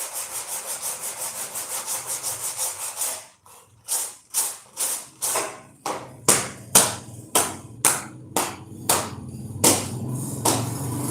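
Repeated rubbing strokes on the dashboard, as in hand-sanding or rasping. The strokes run fast and even, about five a second, for about three seconds. After a short pause they come slower and separate, about two a second, with a low hum rising near the end.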